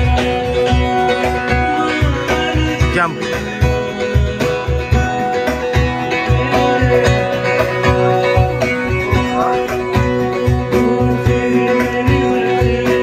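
Music: plucked guitar over a steady beat.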